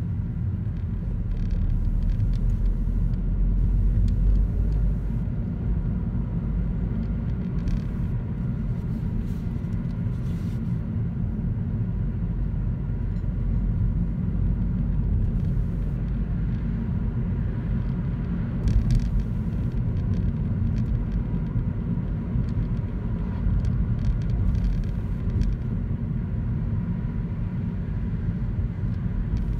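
Steady low rumble of a car being driven, engine and tyre road noise heard from inside the cabin, with a few light knocks along the way.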